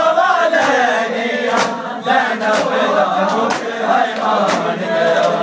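A crowd of bare-chested men chanting a mourning lament together while beating their chests in matam, the open-handed slaps landing in time about twice a second.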